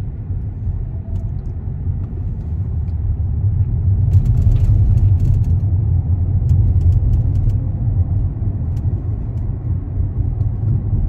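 Road rumble of a moving car heard from inside the cabin: engine and tyre noise that grows louder about four seconds in.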